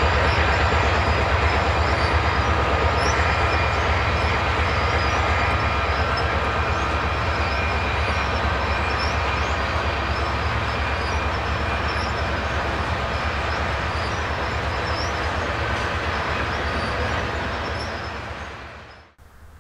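Diesel-hauled freight train rolling past: the trailing locomotives' engines give a deep steady rumble, then the boxcars roll by on the rails. The sound fades out near the end.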